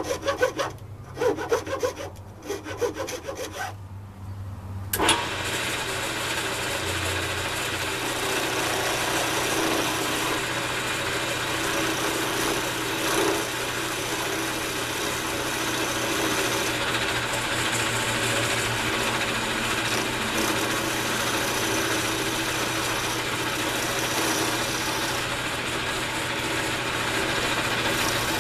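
Cocobolo pen blanks spinning on a lathe being cut down from square to round: a tool scraping the wood over the lathe motor's steady hum. For the first few seconds the scraping comes in short separate strokes, then about five seconds in it settles into one continuous scrape.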